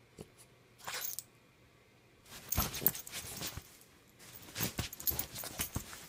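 French bulldog puppy playing on a bed, rustling and tugging at the bedsheets in bursts: a short one about a second in, then longer scrambles from about two and a half seconds in and again near the end.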